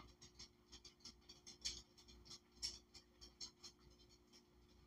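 Near silence with faint, irregular light clicks and ticks, several a second, two slightly louder ones near the middle.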